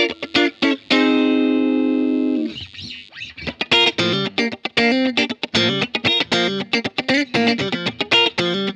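Electric guitar (a Hahn 228) played through a board of effects pedals into a Fender Blues Junior amp: a few short chord stabs, then a chord held for about a second and a half, then a run of quick, choppy notes.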